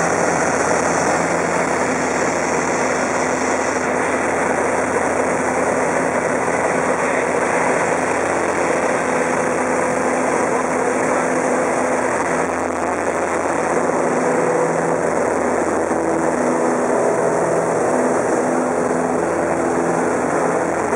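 Super Decathlon's four-cylinder Lycoming engine and propeller running steadily in flight, heard from inside the cockpit with rushing airflow. The engine note shifts a little in the second half.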